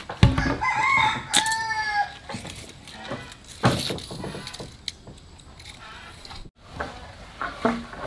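A rooster crows once, a rising-then-falling call about a second in, with chickens clucking around it.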